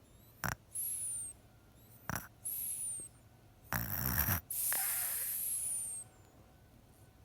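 Snoring in three breaths: each a short rasping snort followed by a high, thin whistle that slides down in pitch, the last whistle the longest.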